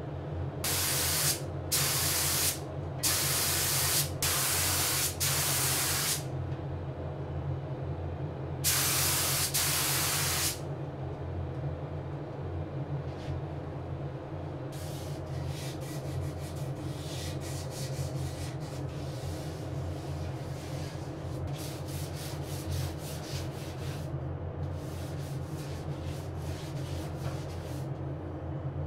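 Gravity-feed spray gun spraying finish in six short hissing bursts, then a walnut case being hand-sanded with a sanding sponge in quick rubbing strokes. A steady low hum runs underneath.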